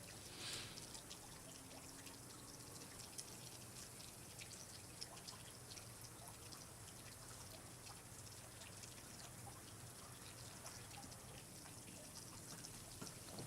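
Faint trickling water with many small scattered drips, and a brief louder hiss about half a second in.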